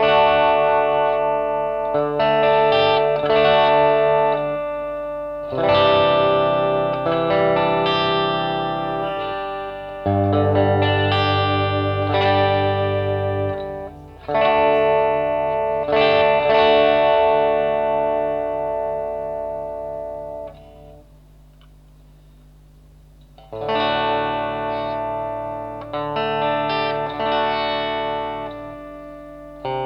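DIY Telecaster-style electric guitar played through a distortion effect: chords struck and left ringing for several seconds each, with a break of about two seconds near the end.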